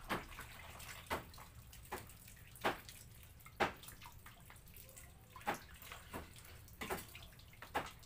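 Tap water pouring over passion fruit being rubbed clean by hand and splashing into a basin of water, with a steady hiss of running water and sharp splashes at irregular moments about once a second.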